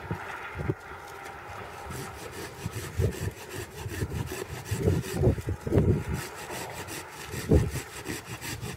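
Hand pruning saw cutting through a walnut tree's leader branch in uneven strokes, with a few louder knocks in the second half.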